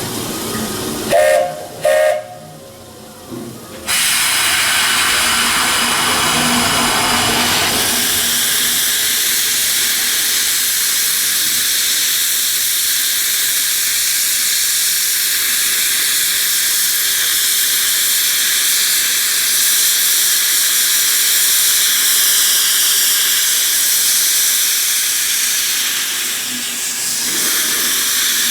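A Buckeye three-chime steam whistle gives two short toots, the usual railroad signal for moving off. About four seconds in, a loud, steady hiss of escaping steam starts and carries on.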